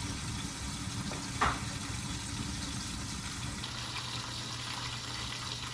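Pan-fried soup dumplings steam-frying in a covered pan: steady sizzling and bubbling as the added water cooks off under the glass lid. A brief click comes about one and a half seconds in.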